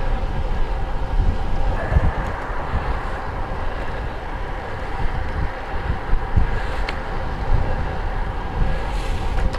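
Steady riding noise from a road bike under way: wind buffeting the microphone with a low rumble, over the hum of tyres rolling on pavement.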